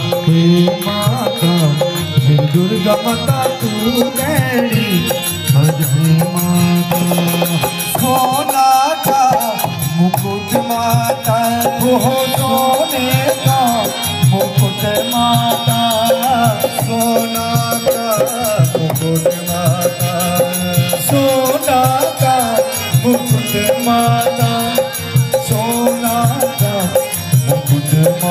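Devotional bhajan music: a harmonium plays a melody over a steady drone, accompanied by the rhythm of a dholak barrel drum.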